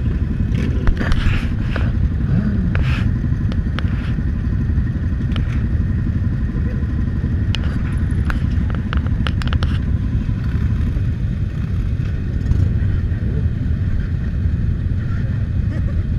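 Many motorcycle engines idling together, a steady low rumble, with scattered sharp clicks and clatter in the first half.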